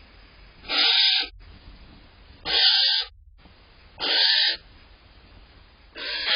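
Barn owl giving harsh, hissing screech calls, four in a row, each about half a second long and repeated about every second and a half.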